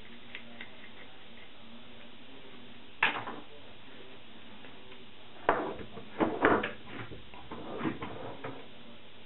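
Metal parts and hand tools handled at a workbench and bench vise: a few faint ticks, a single sharp knock about three seconds in, then a run of clanks and knocks over the last few seconds.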